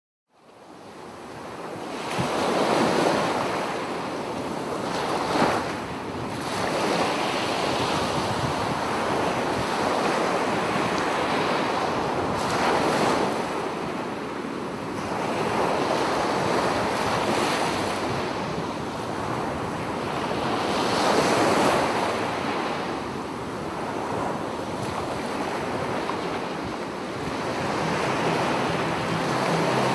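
Sea waves washing ashore, fading in at the start and swelling and falling back every few seconds.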